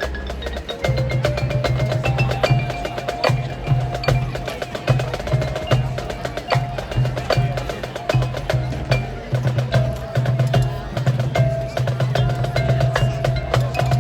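High school marching band playing a percussion-heavy passage: many sharp strikes over held mid-range notes, with a low pulse repeating about twice a second.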